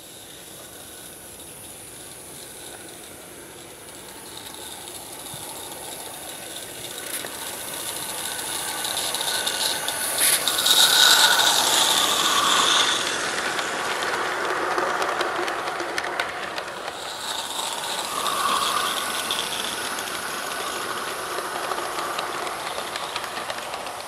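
A G-scale live-steam garden locomotive approaching and passing close by, its steam hissing, with its train of wagons rolling on the track behind. It grows louder as it comes near and is loudest as it passes, about eleven seconds in.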